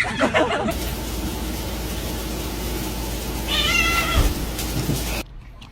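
A domestic cat meowing once, about three and a half seconds in, over a steady hiss and low rumble that cuts off suddenly near the end.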